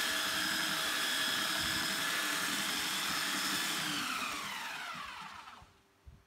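Electric sander running steadily, then switched off about four seconds in, its whine falling in pitch as the motor spins down to a stop.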